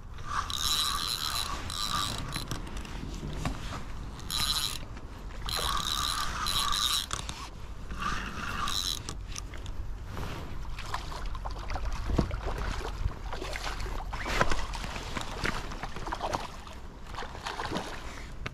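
Spinning fishing reel whirring in repeated bursts of one to two seconds while a hooked salmon is played. Rougher grinding and clicking from the reel follow in the second half.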